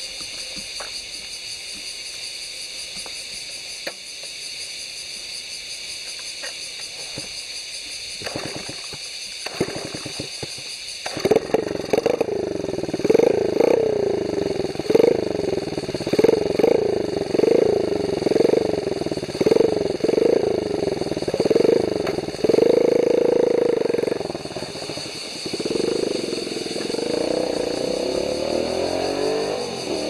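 Honda Monkey Z50Z minibike's small single-cylinder engine. After a few knocks it starts about eleven seconds in, then is revved in quick repeated blips, about one and a half a second, before settling to a steadier run.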